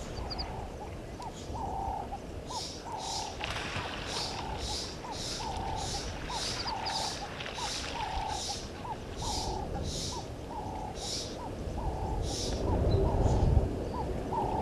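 Wild animal calls: a mid-pitched note repeated about twice a second, over a series of high chirps at a similar pace that stop near the end.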